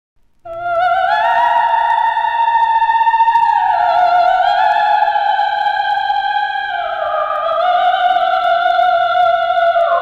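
Solo theremin-like wail with wide vibrato, gliding slowly from note to note, unaccompanied. It starts about half a second in.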